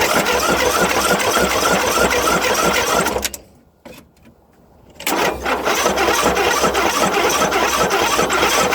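John Deere 102 lawn tractor's single-cylinder 500cc Briggs & Stratton engine turned over by its starter in two spells, with a pause about three seconds in. It rattles and rumbles loudly and shakes the whole machine, and it turned out to have a failed counterbalancer.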